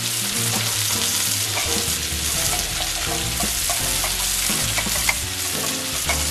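Chicken thigh frying in oil in a nonstick frying pan, a steady sizzle with a few sharp pops of spitting fat near the end; the flipped thigh is browning on its second side before the sauce goes in.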